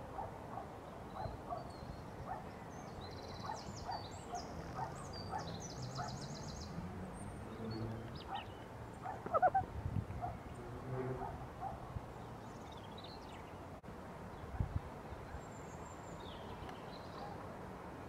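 Woodland birdsong: a songbird's high, rapid trilling phrases a few seconds in, over many short repeated calls. Lower pitched animal calls come through around the middle.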